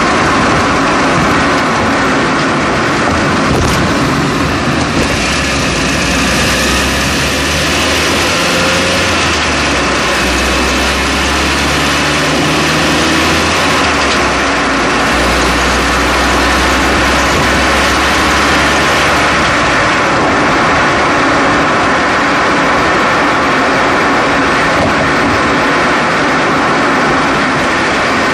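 Steady loud road and tyre noise picked up by a microphone strapped to a car's front passenger-side strut while driving, with a low engine or drivetrain hum that shifts in pitch through the middle and fades again.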